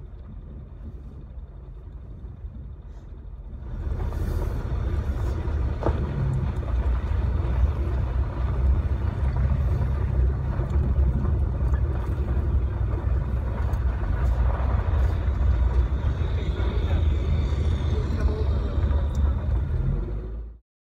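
Vehicle driving over a desert dirt track, heard from inside: a steady low rumble with road noise, growing much louder a few seconds in and cutting off suddenly near the end.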